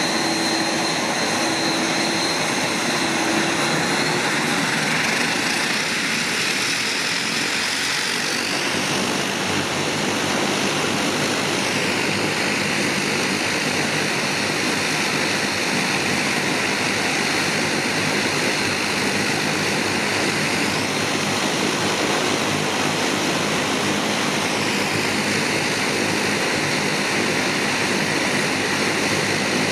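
De Havilland Canada Dash 8-300's Pratt & Whitney Canada PW123 turboprop engines running on the ground with propellers turning: a loud steady rush of propeller and turbine noise. High-pitched tones in it slide in pitch about a third of the way in and again later on.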